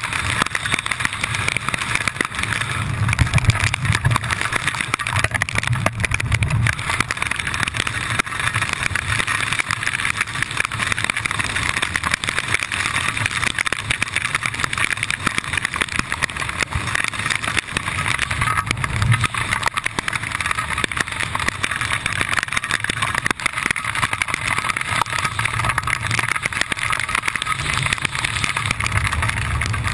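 Steady wind rushing over a GoPro camera's microphone during a descent under an open parachute canopy, with a low buffeting rumble that swells and fades.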